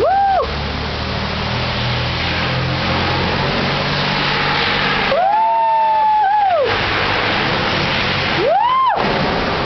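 A car driving through deep flood water, its engine running under a steady rush of spray from the wheels. A long whoop from an onlooker comes about five seconds in, and a short one near the end.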